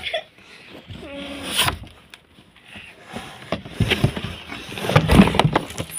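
A person's voice making short wordless vocal sounds, with knocks and rustles of plush toys being moved about inside a cardboard box.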